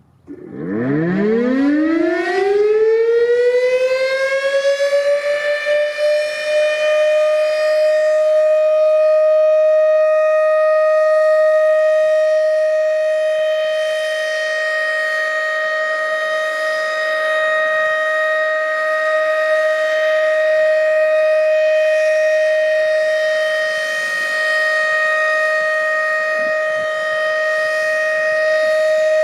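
Federal Signal RSH-10 outdoor warning siren starting up, its pitch rising over about five seconds and then holding one steady tone for a full alert signal. Extremely earsplitting, heard from directly under the siren.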